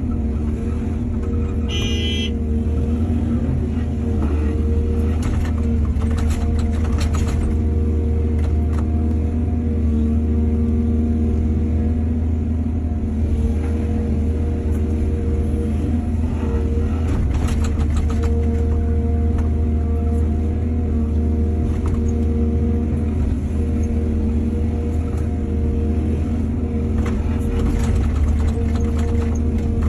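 Excavator's diesel engine running steadily under load, with scattered knocks and clatter from the working machine and a brief high squeal about two seconds in.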